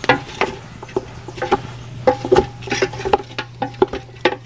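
Wooden spoon stirring duck pieces in a large aluminium pot, knocking and scraping against the pot in quick, irregular clatters, some with a brief metallic ring.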